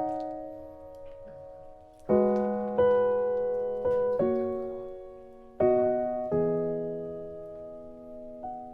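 Slow, gentle solo piano background music, sparse chords struck every second or two and left to ring out and fade.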